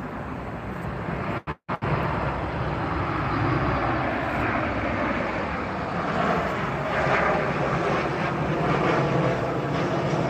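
Jet engines of a twin-engine narrowbody airliner on final approach: a steady rumble and rush. The sound cuts out briefly about a second and a half in, then resumes.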